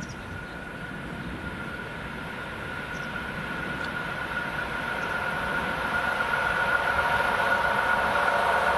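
ED4M electric multiple unit approaching on the track, its running noise growing steadily louder, with a steady whine above the rumble of the wheels on the rails.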